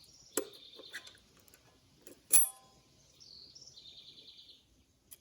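A bird calling twice, each call a short whistled note followed by a buzzy run of quick notes. Between the calls, metal clinks from the dirt bike's rear brake pads and caliper being handled; the loudest is a ringing clink about two seconds in.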